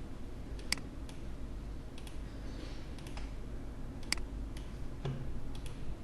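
A few short, sharp computer clicks spaced a second or more apart, two of them louder than the rest, over a faint steady low hum.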